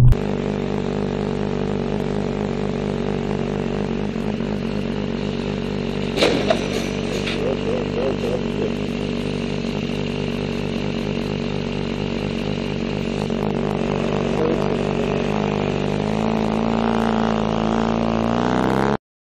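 Sport motorcycle engine running, heard from on the bike, with a short sharp noise about six seconds in. Near the end the engine pitch rises as the bike accelerates, then the sound cuts off suddenly.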